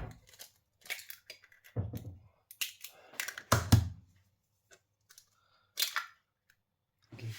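Irregular knocks, clacks and scrapes of a frying pan and kitchen things being handled, about half a dozen sharp impacts several seconds apart.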